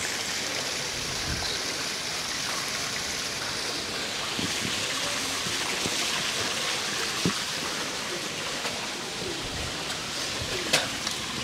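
Steady rushing hiss with an even level, and a single sharp click near the end.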